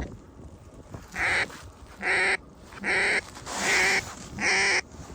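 A hunter's duck call blown in a series of five loud, reedy quacks, each about half a second long and roughly a second apart, calling to ducks circling over the blind.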